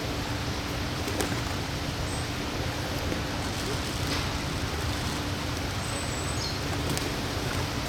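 Steady outdoor background noise with a faint low hum underneath, broken only by a couple of brief, faint high chirps.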